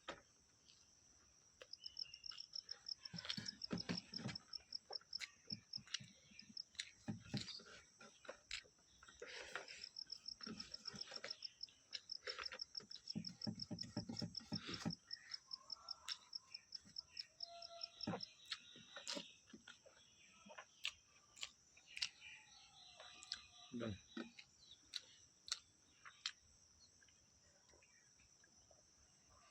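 Someone chewing food close to the microphone: irregular wet smacks and clicks. Behind it, a steady high insect drone, with a rapid pulsed trill in two long stretches, near the start and through the middle.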